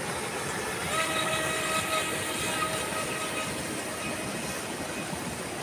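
Small electric motor of an HJ808 RC speedboat whining at a steady pitch from about a second in until about three and a half seconds, over a steady rushing hiss.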